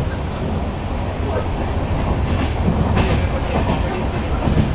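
Express passenger train running at speed, heard from a coach window: a steady, loud rumble of wheels on rail mixed with rushing air, with a few faint clicks partway through.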